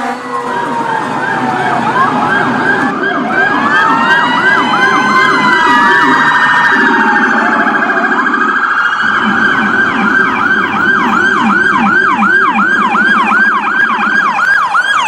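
Electronic emergency siren cycling through its tones: overlapping slow rising-and-falling wails and quicker sweeps, settling in the second half into a fast yelp of about two and a half sweeps a second, with a lower pulsing tone underneath.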